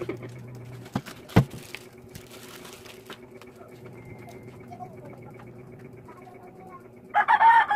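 Small parts and tools handled on a workbench: two sharp clicks, the second louder, then a short rustle, over a faint steady electrical hum. Near the end comes a loud, short pitched sound with several tones.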